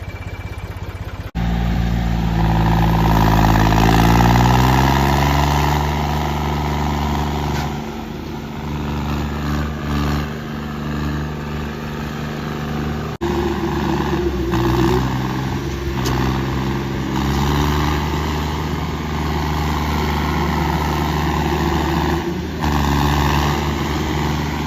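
Tractor diesel engines working hard under load during a tractor tug-of-war in soft soil. The engine pitch climbs over a few seconds and then holds steady. The sound changes abruptly about a second in and again about halfway through.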